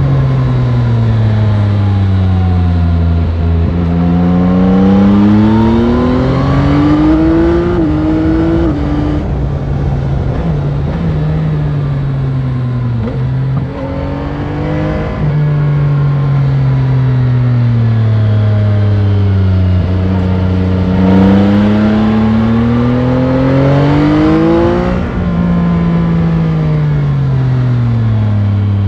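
Yamaha Tracer 9 GT's 890 cc CP3 three-cylinder engine through its stock exhaust, heard onboard while riding. The engine note climbs and falls repeatedly as the throttle is opened and rolled off, with a few abrupt drops in revs.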